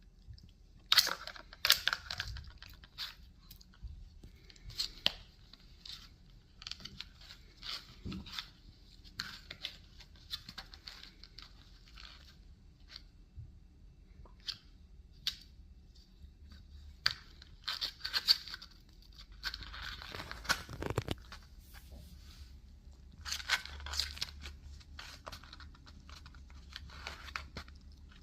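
A puppy tearing and chewing at a cardboard tissue box: irregular bursts of ripping and crunching with short pauses between them.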